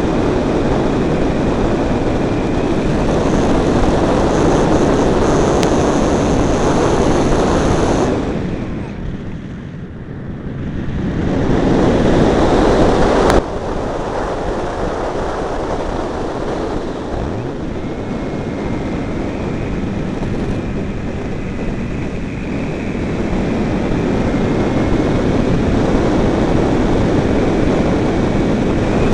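Heavy wind rushing over the microphone, easing off for a few seconds about a third of the way through, with the faint thin whine of a Multiplex Blizzard radio-controlled model airplane's motor coming and going as it flies.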